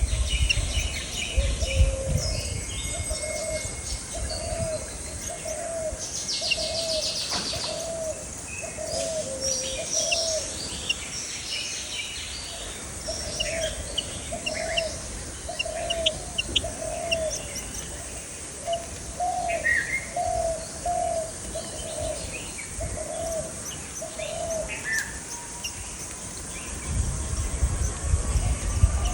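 Birds calling: one bird gives a long series of low, evenly spaced hooting notes, a little faster than one a second, that stops near the end, while other small birds chirp high above it.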